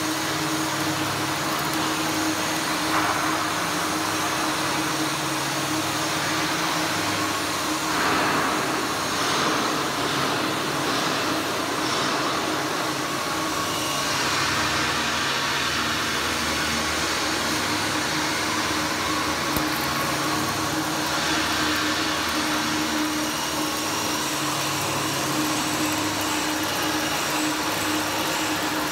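Electric arc welding on heavy steel: a steady hiss of the arc over a constant machine hum, with the arc breaking off briefly partway through.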